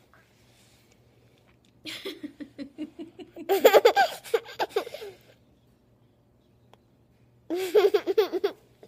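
A toddler giggling and laughing in two bursts: a pulsing giggle that rises into louder laughter, then a second fit of laughter near the end.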